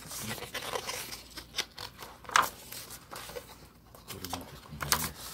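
Paper being handled, likely pages of a book being turned: irregular rustling and scraping, with a sharper crackle about two and a half seconds in.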